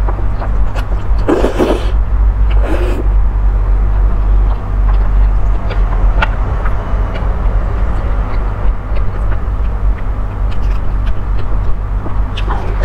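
Close-miked slurping of instant noodles, with two long slurps in the first three seconds, then wet chewing and lip-smacking clicks. A steady low hum sits underneath.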